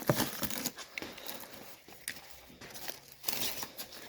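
Packaging being crinkled and torn by hand in irregular rustles, loudest in the first second and then scattered and quieter.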